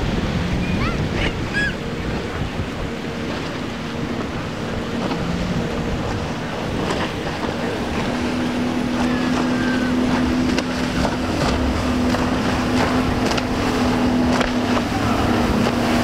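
Single Suzuki 250 hp outboard pushing a center-console boat at speed: a steady engine drone that comes in about halfway through and grows louder. Wind buffets the microphone over the rush of surf and spray.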